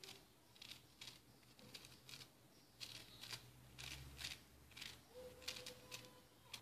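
Small kitchen knife cutting the outer peel off a whole lemon, a faint, irregular run of short crisp scrapes as the blade works around the fruit.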